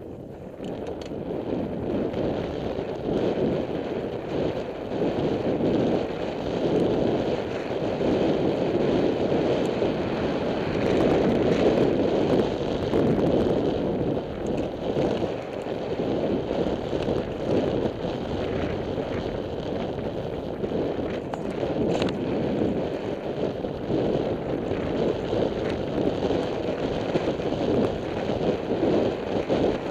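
Wind buffeting the microphone of a helmet-mounted camera on a fast downhill mountain bike descent, mixed with the rumble of the tyres rolling over a dirt fire road. The noise rises and falls unevenly with a few faint clicks.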